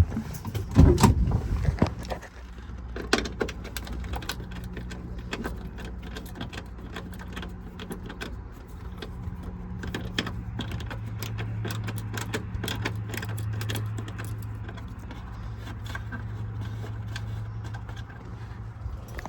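Metal hand tools and screws clicking and clinking as dashboard screws are taken out, with a heavy thump about a second in and a low steady hum underneath.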